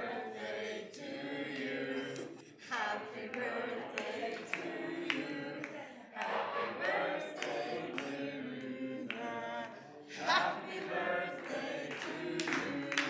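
A small group of people singing together unaccompanied, with held, wavering notes.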